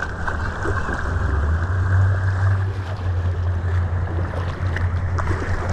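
River water rushing and lapping around a drifting kayak, steady throughout, over a constant low rumble.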